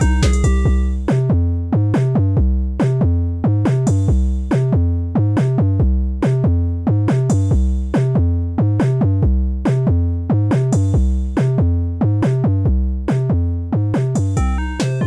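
Electronic background music: a steady drum-machine beat with synthesizer chords and bass.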